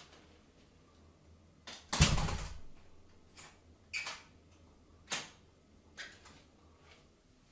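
Knocks and clicks in a small tiled bathroom: one loud thump about two seconds in, then four lighter knocks spread over the next four seconds.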